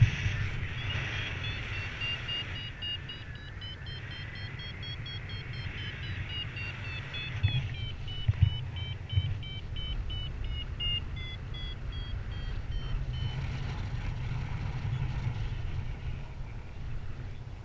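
Wind rushing over the microphone of a paraglider in flight, with a variometer beeping in short repeated tones whose pitch slowly rises and then falls, the sign of the glider climbing in lift. The beeping stops about thirteen seconds in, and a few louder thumps of wind come about halfway through.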